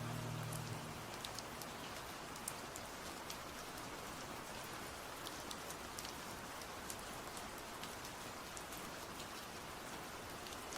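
Recorded rain: steady rainfall with scattered drop ticks. The last of a song's music fades out in the first second.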